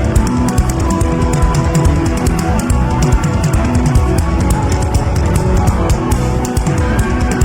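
Band music with no singing: a fast, busy drum beat over a bass line, with guitar and sustained chords.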